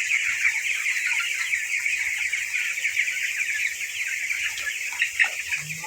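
A large flock of chickens calling all at once: many short, high calls overlapping into a steady chorus.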